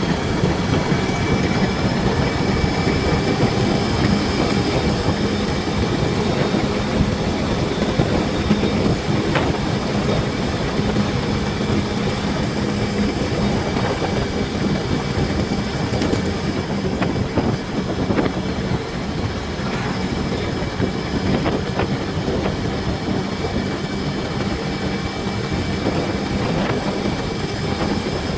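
Motorcycle riding at a steady cruising speed: the engine runs with a steady hum under loud rushing wind and road noise on the microphone.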